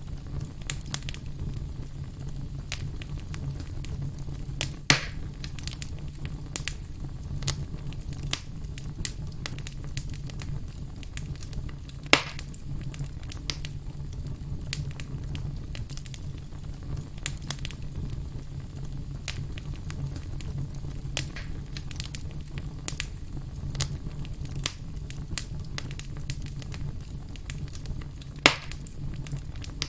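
Firewood burning, with a steady low rumble under constant small crackles and three sharp, louder pops spread through the stretch.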